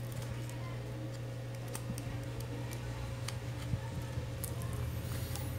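Scattered light clicks and ticks of a smartphone's plastic frame and parts being handled and pried apart by hand, over a steady low hum.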